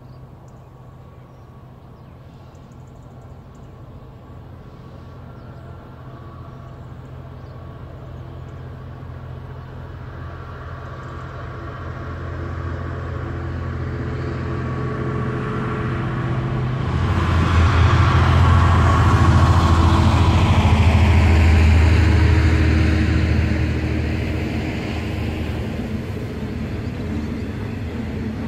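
A diesel-hauled freight train of hopper wagons approaching, with a steady low engine drone that grows louder and is loudest as the locomotive passes about two-thirds in, then the wagons rolling by as the sound eases.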